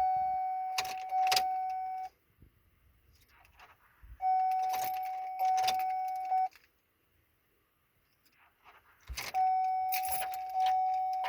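Ignition keys jangling on their ring as the key is worked in a 2003 Chevy Silverado that won't start. A steady electronic warning chime sounds three times, about two seconds each, and no engine sound is heard.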